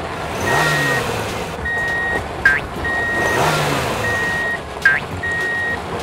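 Vehicle reversing alarm beeping: a steady high beep about once a second, five beeps in all. Beneath it a low vehicle rumble swells and falls twice.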